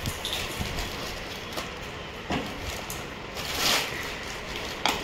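Plastic wrapping and cardboard packaging rustling as they are handled, with a few light knocks and a brief crinkle about three and a half seconds in.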